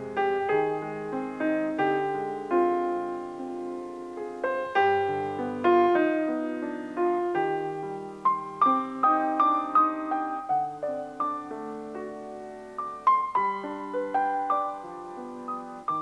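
Solo piano music: a gentle melody played on piano, note after note with chords underneath.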